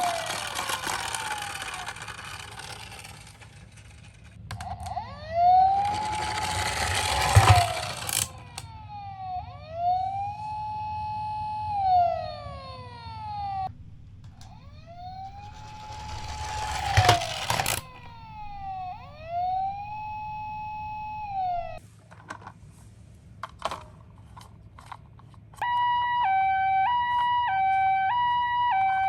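Electronic sirens of toy ambulance miniatures: repeated wailing sweeps that rise, hold and fall, with three stretches of rattling rush from plastic wheels rolling down a cardboard slope, each ending in a sharp clack. Near the end a two-tone hi-lo ambulance siren steps quickly between a high and a low note.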